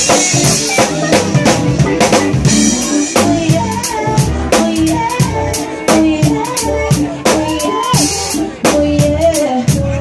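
Live band playing: a driving drum beat with bass, synth keyboard and electric guitar, and a woman's voice singing a wordless melody over it from about halfway through.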